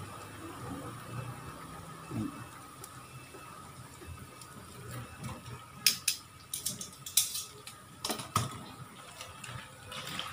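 Tofu pieces deep-frying in hot oil in a metal wok, with a faint steady sizzle. Metal tongs and a wire strainer clink and scrape against the wok in a run of sharp clicks from about six to eight and a half seconds in.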